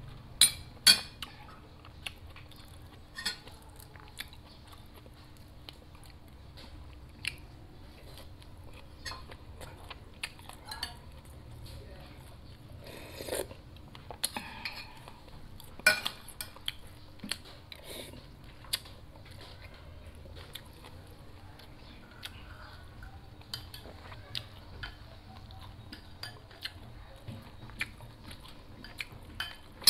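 Metal spoon clinking and scraping against a ceramic bowl and plate during a meal, with quiet chewing between. The clinks come singly and irregularly, the loudest two close together about half a second and a second in.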